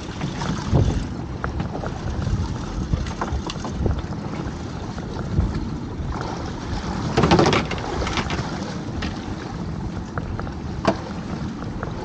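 Wind buffeting the microphone with sea noise around a small open boat, a steady low haze. There is a brief louder rush about seven seconds in and a single sharp knock about eleven seconds in.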